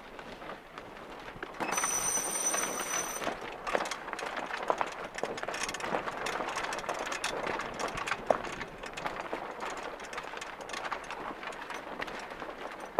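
Wind rushing over the microphone and water swishing along the hull of a small sailing yacht under way, with frequent light clicks and rattles. A high thin steady tone sounds for about a second and a half, starting about two seconds in.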